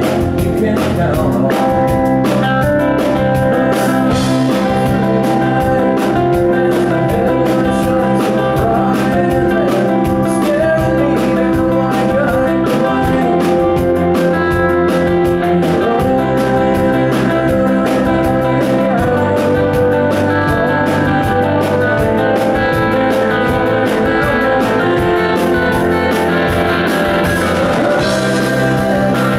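Live rock band playing at a loud, even level: two electric guitars, one a Telecaster-style guitar, through amplifiers, over bass and drums.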